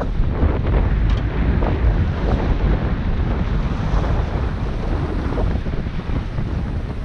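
Wind buffeting the microphone, with sea water washing against the rocks of a jetty.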